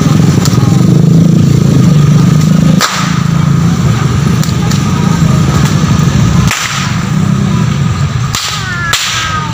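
A long whip (pecut) being cracked, with sharp loud cracks about three seconds in, at six and a half seconds, and twice in quick succession near the end. A steady low rumble runs underneath.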